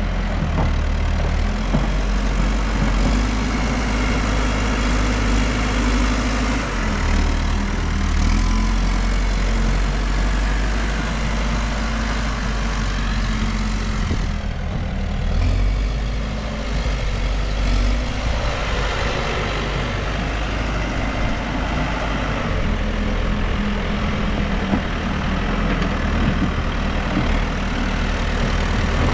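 Diesel engine of a New Holland backhoe loader running steadily, its note shifting a few times as the machine works.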